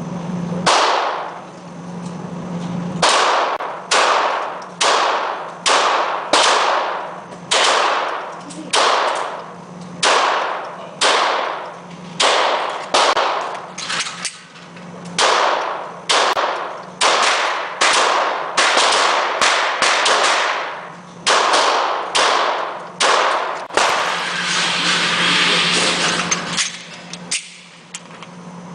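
Gunshots at a shooting range, about one a second at uneven spacing, each sharp crack trailing off in echo, over a steady low hum.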